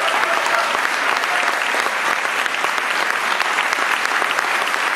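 A large audience applauding: dense, steady clapping of many hands.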